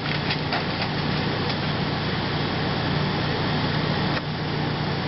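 Refrigerator condenser fan motor running with a steady hum and whir, with a few faint clicks in the first second or so. The fridge is not cooling: the fan runs but the compressor is not kicking in.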